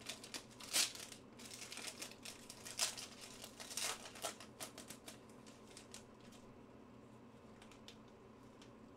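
Foil wrapper of a football trading-card pack crinkling as it is torn open by hand, a run of sharp crinkles over the first few seconds. It goes quieter as the cards are drawn out.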